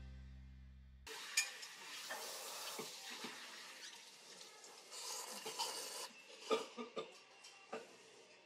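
Faint eating sounds: ramen noodles being slurped, with scattered sharp clicks of chopsticks against the bowl. A music track fades out and stops about a second in.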